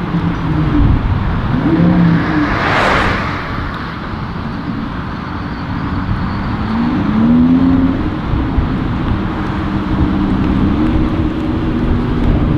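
Audi R8 V10 Performance engine through a Capristo straight-pipe exhaust, running at low revs with a few short rises and steps in pitch. A rushing noise swells and fades about three seconds in.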